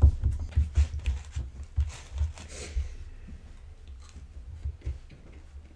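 Pop-Tart pastries being handled, broken and bitten, with crumbly tearing, chewing and irregular light knocks on the wooden table that carry into the microphone standing on it.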